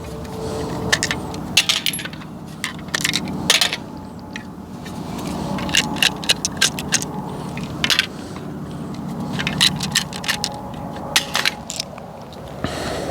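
9mm pistol cartridges clicking and clinking as rounds are moved from partly full Glock magazines and pressed into one magazine. The sharp metallic clicks come in irregular clusters over a steady low hum.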